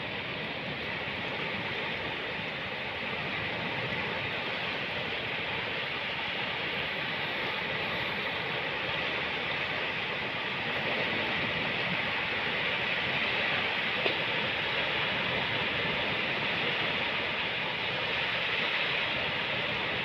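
Ocean surf washing onto a beach as a steady rush of noise, swelling a little about halfway through, with one brief click a little past the middle.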